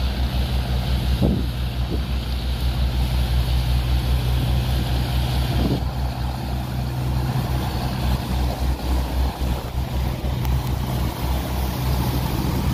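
A cargo barge's diesel engine running steadily under load with a rapid low throb, over an even hiss.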